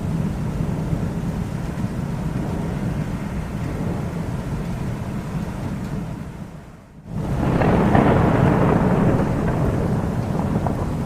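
Thunder rumbling steadily, dying away about six and a half seconds in, then a louder peal of thunder breaking in and rolling on.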